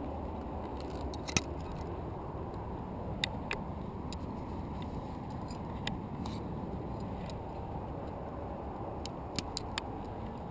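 Sharp metallic clicks of carabiners and quickdraws as a quickdraw is clipped to a bolt and the rope clipped into it. There are a few scattered clicks, with a quick cluster of three near the end, over a steady low rumble of wind on the microphone.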